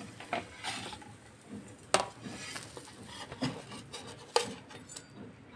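A flat metal spatula scraping and knocking on an iron tawa as a cooked rice chilla is lifted off it, with a few sharp clinks of metal against crockery as it is set on a plate.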